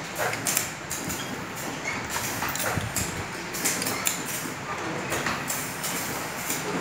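Bench-mounted hand press filling disposable lighters with LPG: short sharp clicks and brief hisses of gas come irregularly, a few times a second, over a steady background noise.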